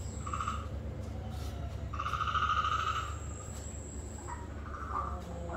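A small animal's rapid pulsed trill, heard twice: a short one at the start and a longer one about two seconds in, over a steady low hum.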